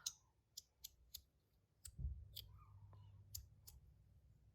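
Osseous Point EDC fidget slider clicking faintly as it is handled and its pieces are fitted together: about nine small, sharp, irregular clicks.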